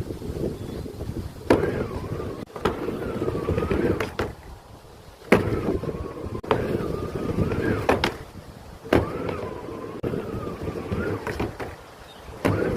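Skateboard wheels rolling and the board knocking down sharply again and again, about nine clacks at uneven spacing, each followed by a wavering rolling hum, as nose stalls are attempted. Heavy wind buffets the microphone throughout.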